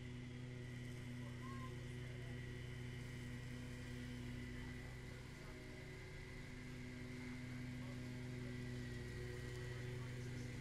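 Riding lawn mower's small engine running steadily as it mows, with a slight rise in level in the last few seconds.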